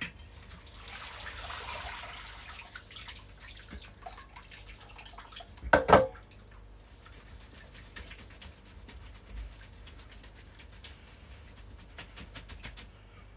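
Hot water from a pan of boiled potatoes poured off into a colander in a sink, a pouring hiss for the first few seconds. About six seconds in comes one loud clank of metal cookware, then faint drips and small knocks.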